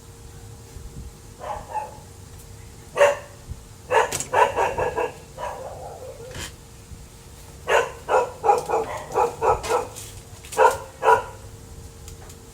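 A dog barking in short barks, one about three seconds in, then a quick run of barks, then a longer run of about a dozen barks in the second half.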